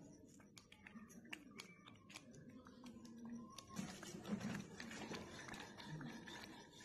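Faint cooking sounds at a clay chulha: a ladle stirring thick saag in a metal kadhai, with scattered small clicks and crackles throughout.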